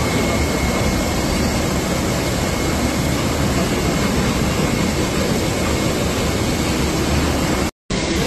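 Steady, loud din of a canning line's conveyors and machinery running, with a faint steady whine over it; it breaks off for a moment near the end.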